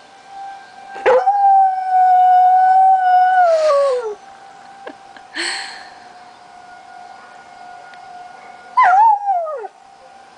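Dutch shepherd–husky mix dog howling along with a steady tornado siren: one long howl about a second in, held level for a couple of seconds and then falling away, a short breathy puff, and near the end a second, shorter howl that wavers and drops in pitch. The siren's steady tone runs underneath.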